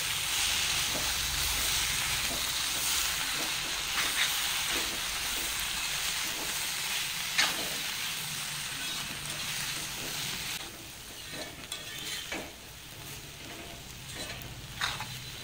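Cheera greens and cooked dal sizzling over a high gas flame in an aluminium kadai while a metal spoon stirs and scrapes through them. The steady sizzle drops off about two-thirds of the way through, leaving quieter scattered spoon scrapes and clicks.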